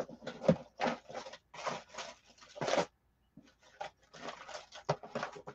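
Rummaging through a box of jewelry pieces: irregular rustling and clattering in short bursts, with a brief pause about three seconds in.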